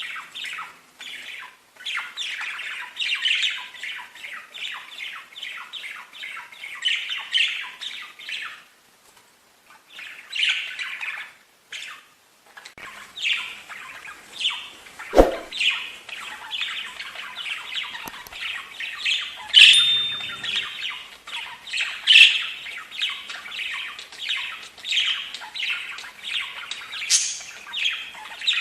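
Budgerigars chattering: a rapid run of short squawks and chirps with brief pauses, and one sharp click about halfway through.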